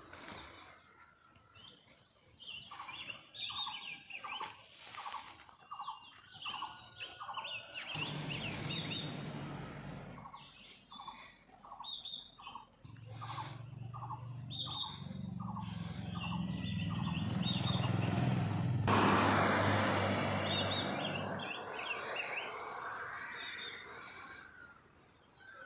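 Birds chirping, one repeating a short call about twice a second. Vehicles pass on a road: a brief one about a third of the way in, then a longer, louder one that swells and fades in the second half.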